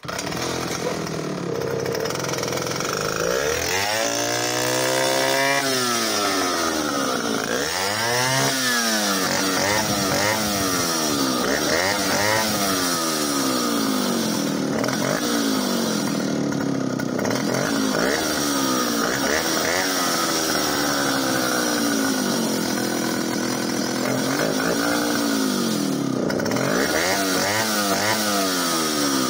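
Solo 60126 70cc two-stroke chainsaw engine catching and running, revved up and down several times. It is running slightly lean, which the owner puts down to a carburettor that needs a new diaphragm and pump.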